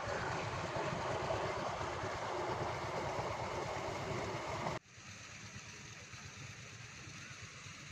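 Tubewell water rushing along an earthen irrigation channel, with a low engine throb underneath from the Petter engine driving the pump. Just before five seconds in, the sound cuts off abruptly to a much quieter stretch of gently flowing water, and the low throb goes on faintly.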